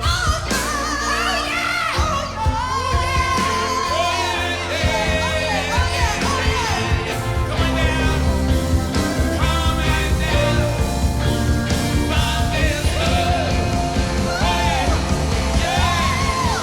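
Live rock band playing with a strong, shouting and belting vocal duet; the full band comes in heavier about five seconds in.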